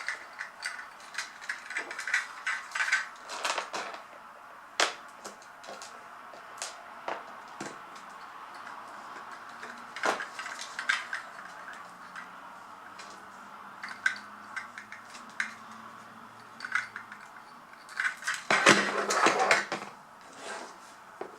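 Small plastic toy parts being handled: scattered light clicks and taps, with a denser burst of clicking and rustling near the end.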